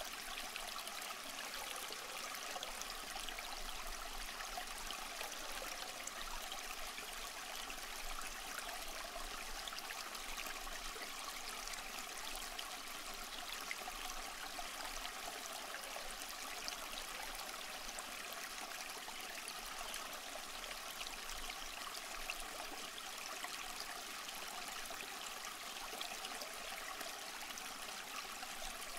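Steady faint rushing hiss, even throughout, with tiny crackles scattered through it and no distinct events.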